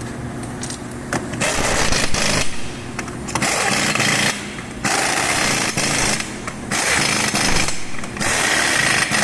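Pneumatic impact wrench running down and tightening the forklift wheel's lug nuts, in about five hammering bursts of roughly a second each with short pauses between, starting about a second in.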